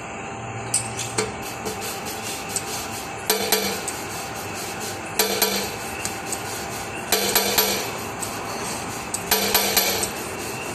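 Steel engine valve dropped into its seat in a cylinder head, four times about two seconds apart. Each drop is a short clinking rattle of metal on metal with a brief ring.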